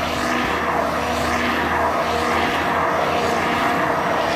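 Hand-held immersion blender running steadily with its shaft sunk in a bucket of thick homemade mayonnaise sauce, a constant motor hum with the churn of the sauce over it.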